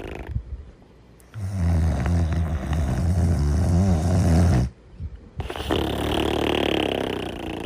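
Cartoon snoring in a repeating cycle. A low, buzzing snore lasts about three seconds, then after a short pause comes a higher, hissing snore.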